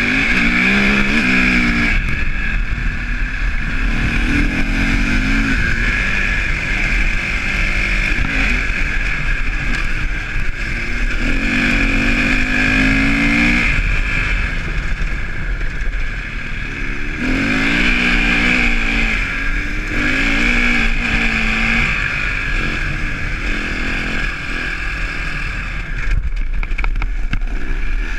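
KTM enduro motorcycle engine running hard off-road, its pitch repeatedly climbing as it revs up through the gears and dropping on each shift or throttle lift, with a steady hiss over it.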